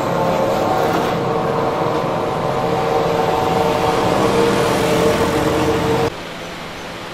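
An engine running steadily nearby, with a few steady pitched tones. About six seconds in it cuts off abruptly, leaving a quieter, even hiss.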